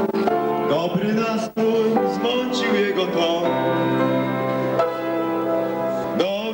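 Singer performing a pop song live into a microphone over held accompaniment chords, with a momentary dropout in the sound about a second and a half in.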